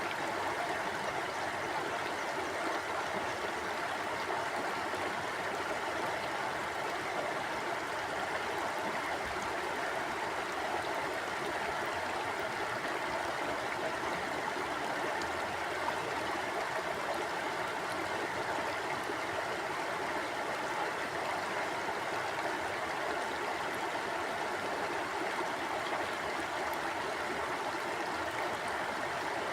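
Mountain stream flowing steadily over rocks: a continuous, even rush of water with no breaks.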